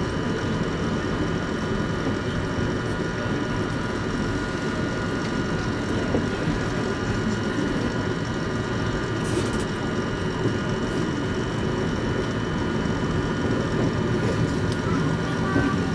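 Running noise of an Eizan Electric Railway Deo 810 electric railcar heard from inside the cab at low speed: a steady rumble of wheels on track with a constant hum of several tones over it.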